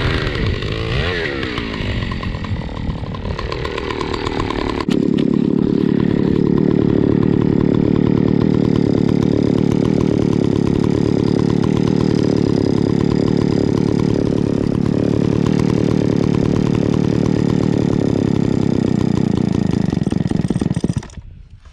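A John Deere 70V two-stroke chainsaw revving up and down for the first few seconds. It then runs loud and steady at high throttle for about sixteen seconds before cutting off near the end.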